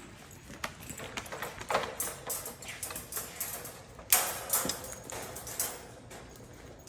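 Irregular footsteps clicking and knocking on a hard floor, with a louder scuffing noise about four seconds in.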